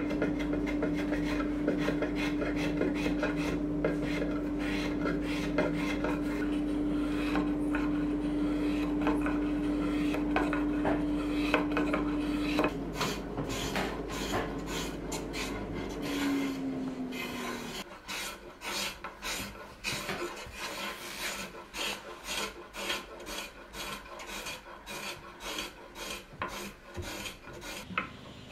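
Small Japanese hand plane and spokeshave shaving the curved wooden edge of a chair back in quick, repeated short strokes, each a brief dry scrape. A steady low hum runs under the first half and stops about halfway.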